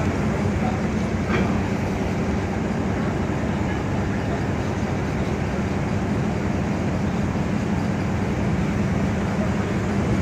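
A ship's engine running with a steady, even drone.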